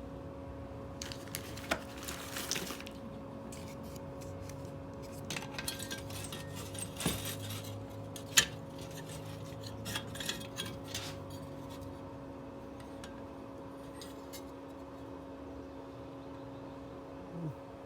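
Small metal parts and tools clinking and rattling as they are handled, in scattered taps with one sharp click about halfway through, over a steady low hum.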